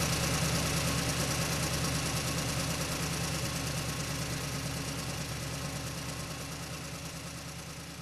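Heavy tanker truck's diesel engine running steadily, slowly fading out.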